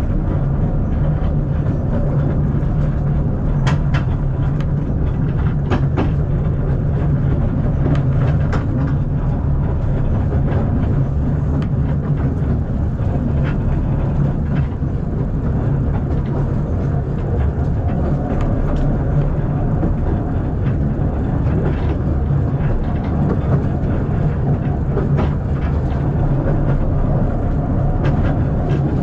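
Moving carriage of the narrow-gauge steam tourist train: a steady low rumble with irregular sharp clicks and knocks from the running gear.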